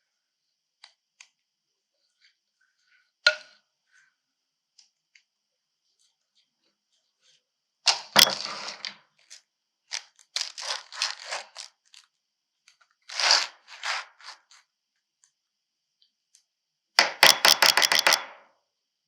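Kitchen utensils scraping and knocking against cookware, in short bursts, with a sharp click about three seconds in and a run of quick strokes near the end.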